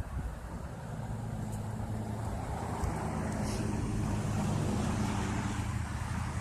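A motor vehicle's engine passing, a low steady drone that grows louder to its peak about four to five seconds in and then begins to fade.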